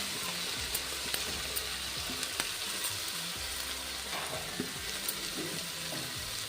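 Grated ginger sizzling steadily as it fries in hot desi ghee in a pan, with a few faint ticks and pops.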